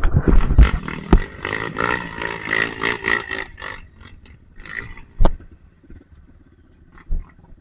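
Dirt bike engine revved hard in mud, the pitch wavering for about three and a half seconds before dropping to shorter blips, with a couple of sharp knocks.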